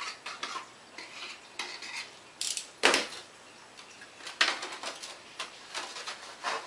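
Clattering and rustling as a foam wing piece, tissue and small tools are handled on a worktable, with one sharp knock about three seconds in.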